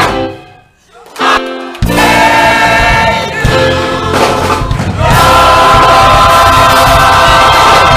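Gospel choir singing with band accompaniment. The music breaks off abruptly just after it begins, comes back at nearly two seconds, and from about five seconds in the choir and band hold one long, loud chord.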